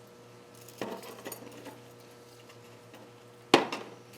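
Small metal engine parts and tools being handled on a workbench: a few light clicks about a second in, then one sharp metallic clack near the end, over a steady low hum.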